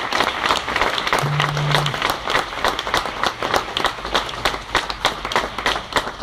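Audience applauding, with a brief low steady tone about a second in.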